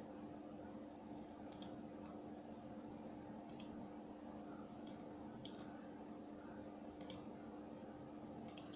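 Faint, scattered clicks of a computer mouse and keyboard, some in quick pairs, over a steady low hum.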